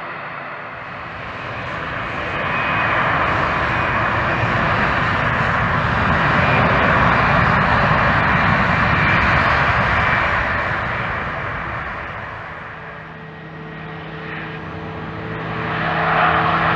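Twin Pratt & Whitney Canada PW127G turboprop engines of a CASA C-295 running as the aircraft taxis past. The sound grows louder, peaks midway, fades, then swells again near the end as a steady low hum comes in.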